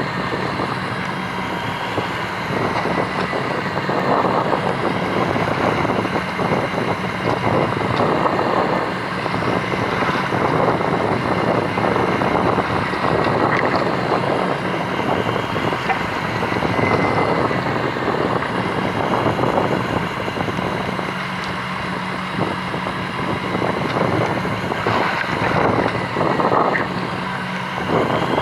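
Fishing boat's engine running steadily with a constant hum, under wind noise on the microphone that swells and eases every few seconds.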